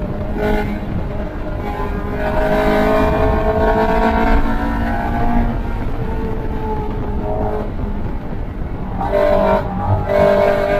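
In-car sound of a small vintage race car's engine under load. Its pitch climbs between about 2 and 5 seconds in, the note eases off around 7 to 9 seconds, then it climbs again near the end, over steady wind and road rumble in the open cockpit.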